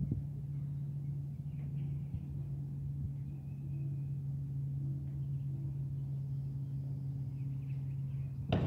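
Steady low mechanical hum, with faint bird chirps above it and one sharp knock near the end.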